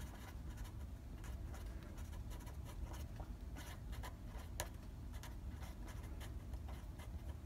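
Felt-tip pen scratching on paper in many short strokes as words are handwritten, over a faint low hum.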